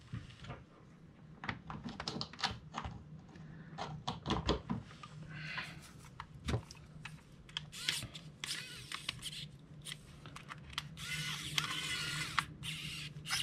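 Sharp clicks and taps of the plastic hot glue gun housing and trigger being handled. About eleven seconds in, a small pen-style electric screwdriver whirs for a second or two, driving a screw into the housing.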